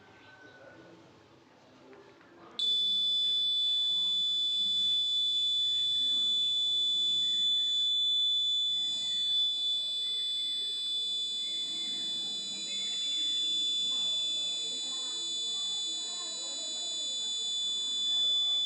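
Fire alarm sounding a continuous high-pitched electronic tone that switches on abruptly about two and a half seconds in, over voices in the background.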